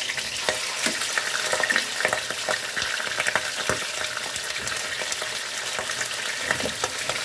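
Tuna steaks and a tuna head frying in hot oil in a nonstick pan: a steady sizzle with many sharp pops as the oil spatters.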